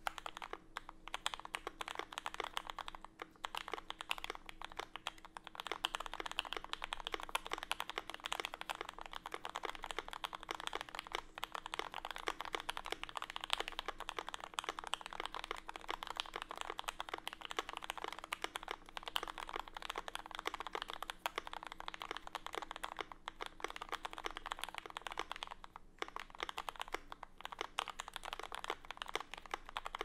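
Continuous fast typing on a TX Keyboards HJ-75 custom mechanical keyboard with lubed Gateron Yellow linear switches, PBT keycaps and an acrylic sandwich-mount case. It is a dense run of keystrokes with brief pauses about three seconds in and again near the end.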